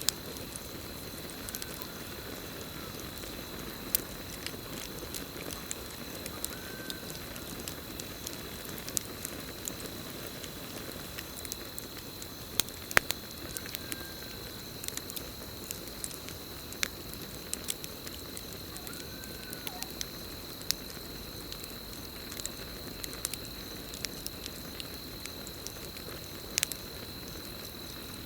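Campfire crackling: sharp pops scattered irregularly over a steady hiss of burning wood, with crickets trilling on one steady high note. A faint short call that rises and falls comes every few seconds.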